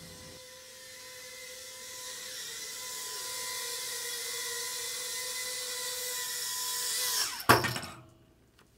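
Eachine Turbine QX70 micro quadcopter's brushed motors and ducted propellers whining, growing louder over several seconds. About seven and a half seconds in the pitch drops and a sharp clatter follows as the drone crashes into something, and the motors stop.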